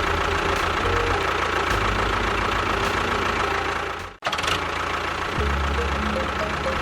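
Small motor running steadily with a low drone, broken by a brief cut about four seconds in.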